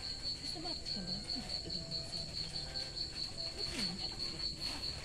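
A cricket chirping in a steady, rapid, evenly pulsed high trill.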